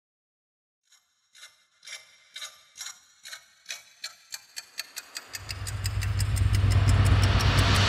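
Ticking sound effect at the start of a soundtrack, the ticks slow at first and then speeding up. A rising whoosh and a deep bass drone come in about halfway, building toward the music.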